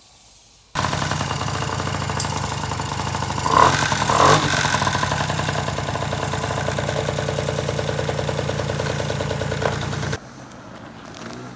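Small two-stroke engine of a 1987 Honda Spree scooter running with a fast, even pulse, briefly louder twice about three and a half to four and a half seconds in. It starts suddenly just under a second in and cuts off abruptly near the end.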